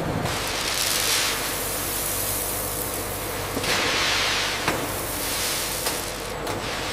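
Factory process noise: a steady rushing hiss over a low machine rumble. It swells twice, about a second in and again around four seconds, with a few sharp clicks near the end.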